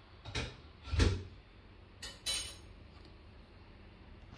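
Two dull knocks, the second the louder, followed by two sharp, bright clinks in quick succession, over a steady faint hiss.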